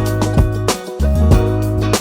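Background music: a pop song with bass, guitar and drum hits, between sung lines.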